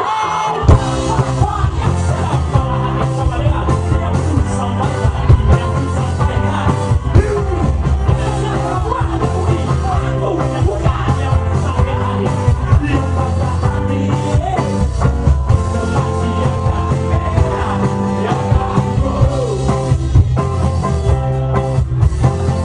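Rock band playing a song with electric guitars, bass and drums, with a lead singer's vocals over the top.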